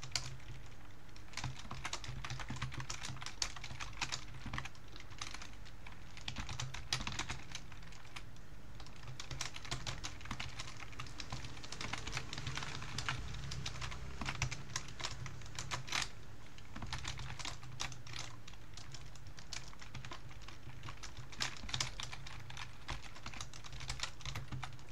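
Computer keyboard typing: rapid, irregular key clicks that go on without a break while code is being written.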